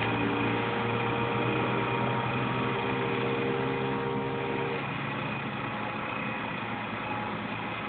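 A motor vehicle's engine running steadily with a low hum; some higher tones in it drop away about five seconds in.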